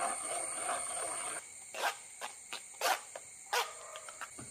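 Steel spoon stirring and scraping ground rice-and-coconut batter through a stainless-steel mesh strainer. From about a second and a half in, the steady scraping gives way to several short sharp clicks as the spoon presses the coarse residue against the mesh.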